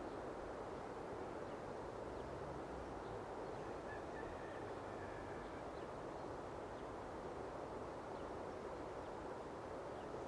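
Quiet outdoor ambience: a steady soft background rush, with faint scattered bird chirps and a faint drawn-out call about four seconds in.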